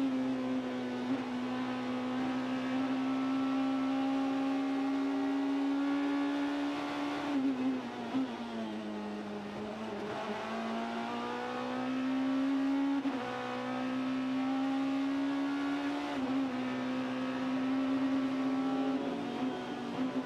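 BMW V8 GT race car's engine heard onboard at racing speed: it holds high revs and climbs slowly, drops as the driver brakes and downshifts about seven seconds in, then climbs again through upshifts, with sharp dips in pitch at each gear change.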